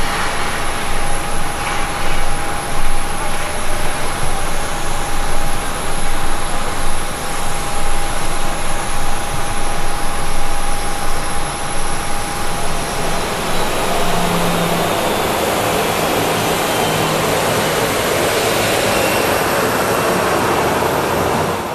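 Jet airliner's turbofan engines running: a steady rushing noise with a held whine that fades out about halfway through.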